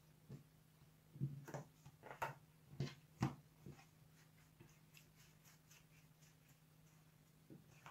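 Faint hand work with yeast dough on a silicone baking mat: a few light taps about one to three seconds in as dough pieces are set down, then soft rubbing as a dough rope is rolled under the palms. A low steady hum runs underneath.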